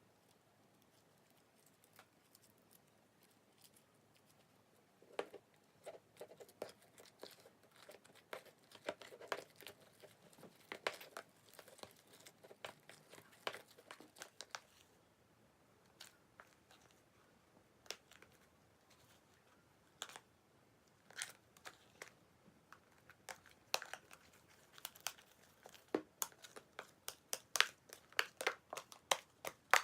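Slime mixed with Banana Kick corn puff snack being squeezed and kneaded by hand, the snack pieces crackling and crunching in irregular little clicks. Nearly quiet for the first few seconds, then the crackles come thicker toward the end.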